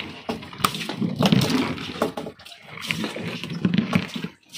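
A fresh fish being handled on ice in a plastic cooler: wet slaps, irregular knocks and ice chunks clattering, with water sloshing.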